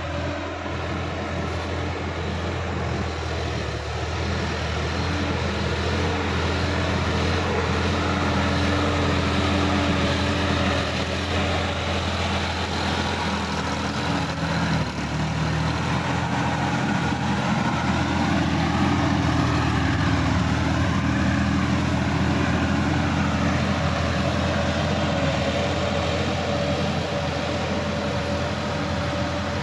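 Sonalika DI-50 RX tractor's diesel engine running steadily under load as it drives a rear rotary tiller through flooded paddy mud. It grows louder as the tractor passes close by near the middle, and the engine note shifts lower as it moves away.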